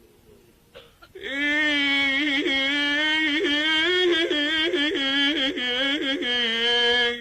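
A male singer's wordless melismatic vocal line in the Arabic devotional style, starting about a second in after a short pause: one long phrase held near a single pitch with quick ornamental turns.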